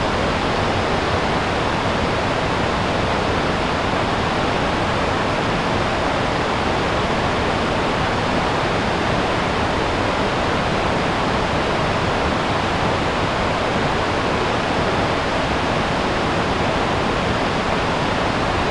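River rapids rushing over rock: a steady, unbroken rush of white water.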